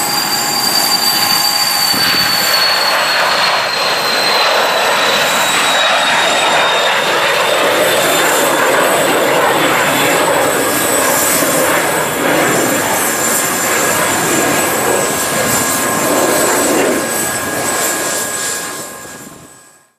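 Twin Pratt & Whitney PW535 turbofans of an Embraer Phenom 300 business jet at takeoff thrust as it climbs away: loud, steady jet noise with a high whine that slowly drops in pitch over the first several seconds. The sound fades out quickly near the end.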